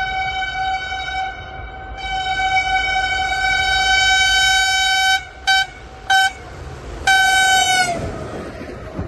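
Locomotive horn sounded in a playful rhythm: one long blast, two short toots, then a shorter blast whose pitch sags as it cuts off.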